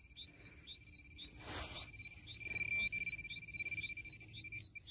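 A metal-detecting pinpointer sounds a steady, high electronic tone over a target in the dug hole. The tone is louder in the middle and cuts off just before the end. A faint, even chirp repeats about three times a second, and a brief scrape of soil comes about a second and a half in.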